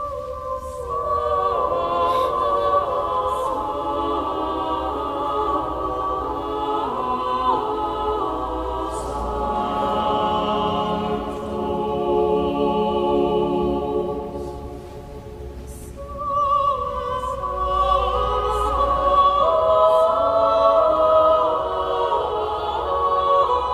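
A choir singing sacred music in sustained lines with vibrato. It eases off briefly about fifteen seconds in, then the voices swell again, fuller.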